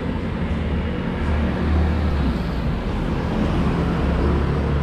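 Road traffic running by: a steady, loud low rumble of vehicle engines with no single standout event.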